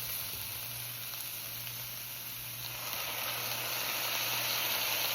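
Cabbage and shredded chicken sizzling in hot oil in a cast iron skillet, a steady hiss that grows somewhat louder about three seconds in.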